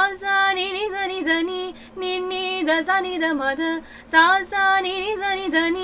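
Solo female voice singing a fast run of Carnatic swara syllables (sa, ni, ga, ri) in a Tamil film song, stepping quickly up and down in pitch with ornamented turns. It breaks briefly for breath twice.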